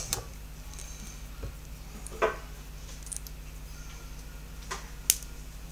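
A few scattered light clicks and taps as a small metal crimp terminal and hand tools are handled on a wooden workbench, the clearest about two seconds in, over a faint steady low hum.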